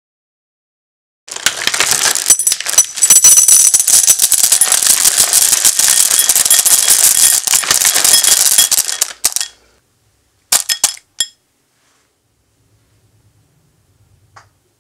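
Dark chocolate callets being poured into a glass bowl: a dense clattering of many small hard pieces lasting about eight seconds, then a short burst of a few last clicks.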